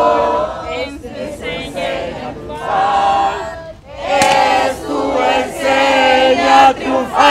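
A group of protesters chanting slogans in unison, loud drawn-out phrases of many voices with short breaks between them.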